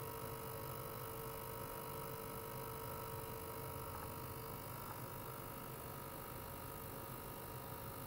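Steady electrical hum and faint steady whining tones from running lab equipment, over a light hiss. One of the tones drops out about halfway through.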